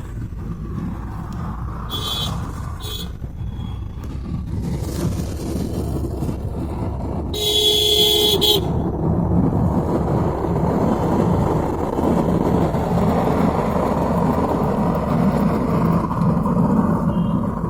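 Car horns honking in street traffic: two short toots about two seconds in, then a longer, louder honk around eight seconds, over a steady rumble of vehicles.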